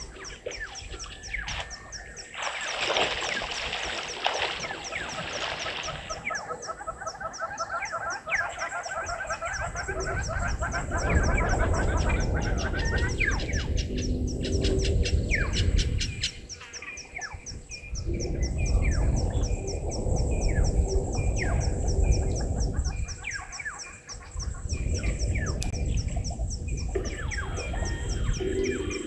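Bush ambience at a waterhole: birds chirping and calling, with a quick run of repeated notes about seven seconds in, over a steady, fast high-pitched ticking of insects. Three long bursts of low rumbling noise come and go in the second half.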